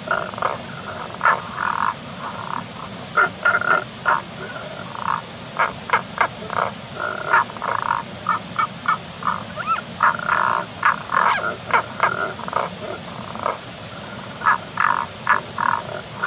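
Tago's brown frogs calling from rock holes: short, snore-like croaks, some single and some in quick runs, repeated irregularly throughout.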